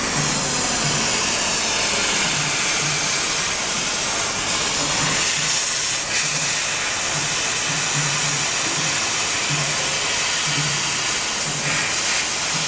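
Nd:YAG laser cutting machine cutting steel sheet: a steady hiss, with a low hum coming and going in short, irregular pulses.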